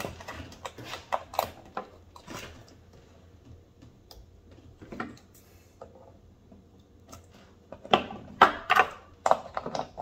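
Screwdriver clicking and scraping against the terminal screws and wires of an air-conditioner disconnect block, in scattered small clicks, with a cluster of louder clicks near the end as the screw is worked.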